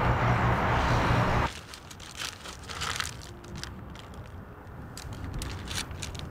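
Road traffic noise with a low engine hum that cuts off abruptly about a second and a half in. After that it is quiet, with paper food wrappers crinkling and rustling in short scattered crackles as burgers are eaten.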